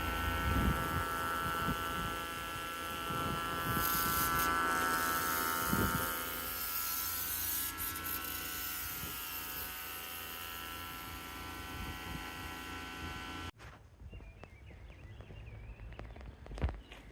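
Pressure washer running steadily, a buzzing hum with the hiss of the water spray. About thirteen seconds in it cuts off abruptly, leaving a quiet outdoor stretch with birds chirping.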